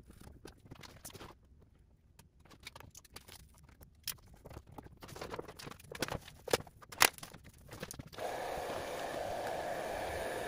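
Vinyl wrap film crackling and crinkling as it is peeled from its backing, stretched and pressed onto a golf cart body panel with a squeegee, with scattered sharp crackles and scrapes. About eight seconds in, a steady rushing noise starts and continues.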